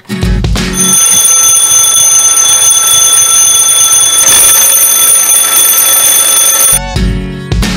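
Twin-bell alarm clock ringing loudly and without a break for about six seconds, then stopping suddenly.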